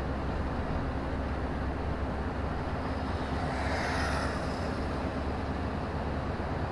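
Steady running noise of a lorry on the move, engine hum and tyre noise heard from inside the cab. A brief swell of hissing noise comes about four seconds in.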